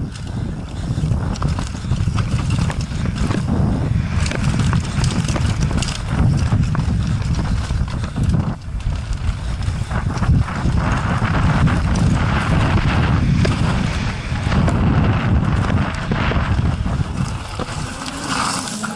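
Downhill mountain bike clattering and knocking over rough dirt, roots and rocks at speed, with steady low wind noise, heard from a helmet-mounted camera.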